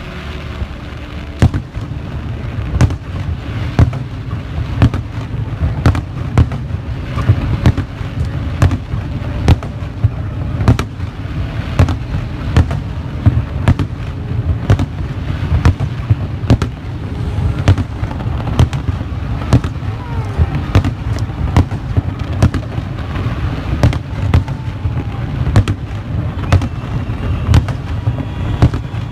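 Fireworks display going off: a fast, irregular string of sharp bangs and cracks, several a second, over a steady low rumble.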